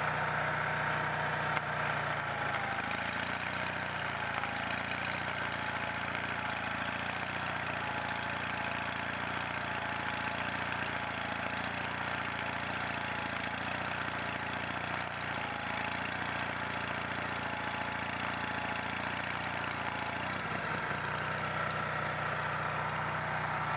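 Onan 4.0 generator's engine running steadily while loaded by an arc welder, pulling well under the load. Its note shifts about 20 seconds in.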